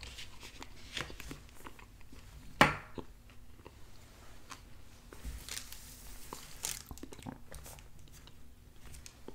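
Close-miked chewing of the last mouthful of roasted potatoes, with small wet mouth clicks. About two and a half seconds in, one sharp clack, a metal fork set down on a plastic plate, is the loudest sound.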